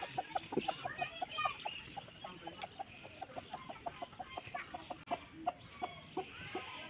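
Chicken clucking: a long run of short, quick clucks, several a second.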